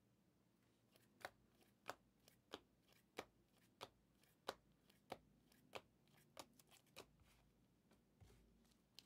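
Trading cards being flipped through one at a time from a hand-held stack, each card giving a faint, sharp click in a steady rhythm of about ten clicks, roughly three every two seconds, then a pause and one last click near the end.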